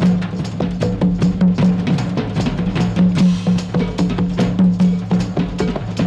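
Jazz-fusion band playing an instrumental: busy drum kit and percussion strokes several times a second over a loud repeating bass line.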